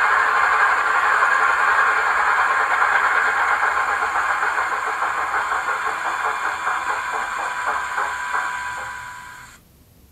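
Sound-decoder recording of a British Rail Class 24 diesel engine played through a model locomotive's small speaker. The engine runs with a steady whine, its individual beats showing and slowing as it fades out and stops near the end, like an engine being shut down.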